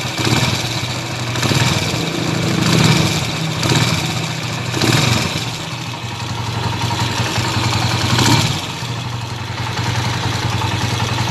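Honda TMX155 single-cylinder motorcycle engine idling steadily, swelling briefly several times. The engine has a tick that replacing the rocker arm, cam follower and timing gear has not cured.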